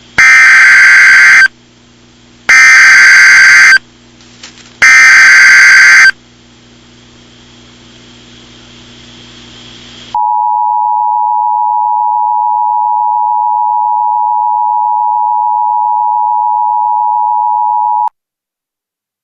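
An Emergency Alert System activation: three loud, screechy SAME digital header bursts, each about a second long and a second apart. A few seconds of faint hiss follow, then the steady two-tone EAS attention signal (853 and 960 Hz), which holds for about eight seconds and cuts off suddenly.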